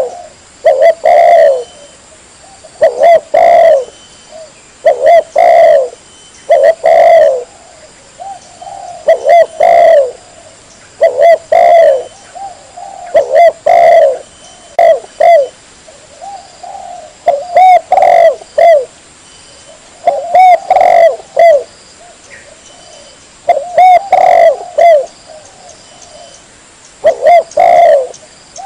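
Spotted dove (tekukur) cooing: loud coo phrases about a second long, repeated every two seconds or so, the kind of recording played as a lure call to draw doves in.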